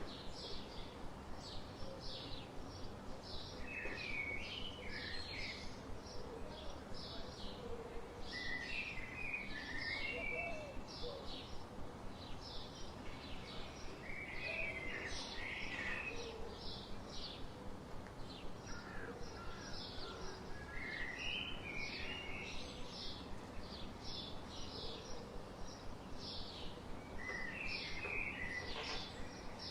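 Birds chirping outdoors: a steady run of short, evenly repeated high chirps, with a brief burst of twittering every five or six seconds, over a constant low background hiss.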